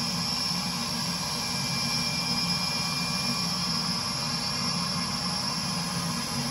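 Burnham Alpine boiler's combustion air blower running steadily at high speed, a rush of air with a low hum under it, purging the combustion chamber before ignition.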